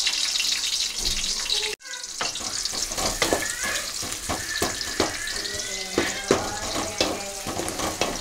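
Sliced onions sizzling in hot oil in an old metal kadai. After a brief drop-out about two seconds in, a wooden spatula stirs them, scraping and clicking against the pan over the sizzle.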